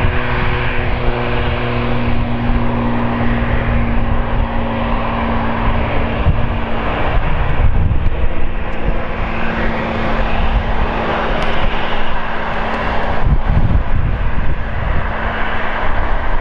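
Jet airliner engines running at low power nearby: a steady roar with a low, even hum underneath.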